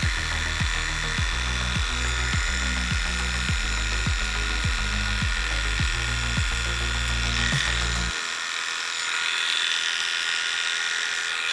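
Heiniger electric pet clipper running with a steady high whine while trimming the fur on a cat's paw. Background music with a steady beat plays underneath and stops about eight seconds in.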